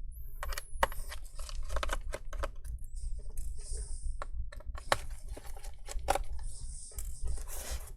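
Phillips screwdriver loosening captive screws on a laptop's plastic back cover: an irregular run of small clicks. The clicking is the sign that a captive screw has let go of its thread and it is time to stop turning.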